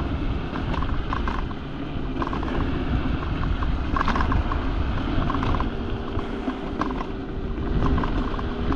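Teverun Fighter Supreme Ultra electric scooter rolling over a bumpy path: repeated rattles and creaks from the scooter over a steady low rumble of tyres and wind. A steady hum comes in about halfway through.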